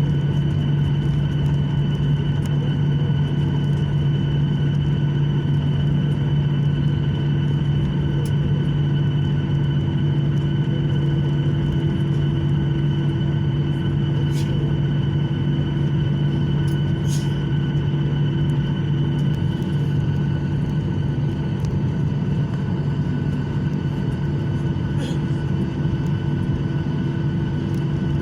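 Airliner cabin noise while taxiing after landing: the steady drone and whine of the jet engines at low power over a constant rumble, with a few faint clicks from the cabin.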